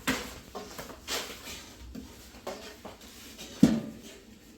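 A few separate sharp knocks and clatters about a second apart, the loudest about three and a half seconds in.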